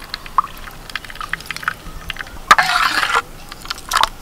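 Papaya juice trickling and splashing in a steel bowl as lime juice is pressed in and the juice is stirred. Light clicks and taps throughout, with a louder splashy rush about two and a half seconds in.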